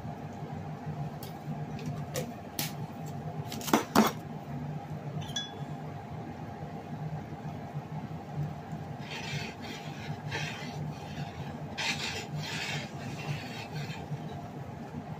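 A utensil clinks and taps against a metal saucepan, with the loudest knocks about four seconds in. Later it scrapes and stirs through noodle soup in the pot in a run of short rasping strokes. A low steady hum runs underneath.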